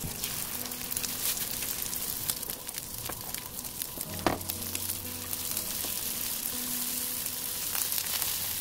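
King oyster mushroom slices in egg batter frying in oil in a pan: a steady sizzle full of fine crackles and pops. One sharp tap stands out about four seconds in, over soft background music.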